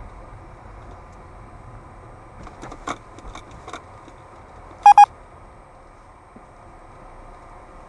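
Dashcam giving two short, high electronic beeps in quick succession, the alert as it switches to event recording. A few light clicks come just before, over the steady low hum of the car cabin.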